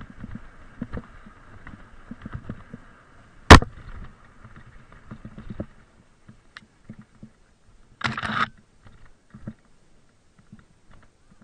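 Mountain bike rattling and knocking as it rolls down a rough, leaf-strewn forest trail. There is one very loud sharp knock about three and a half seconds in and a brief harsh hiss about eight seconds in. Only sparse small clicks follow.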